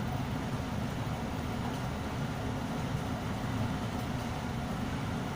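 Ship's engine running with a steady low rumble, the engine vibrating heavily.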